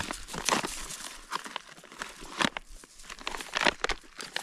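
Plastic MRE pouch crinkling and rustling as it is handled and torn open, in a run of irregular crackles.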